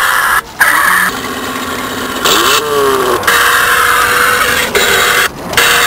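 Electronic engine sound effect from a toy RC car's built-in sound module, played through its small speaker and following the throttle. It runs steadily, revs up and back down about two to three seconds in, and cuts out briefly twice.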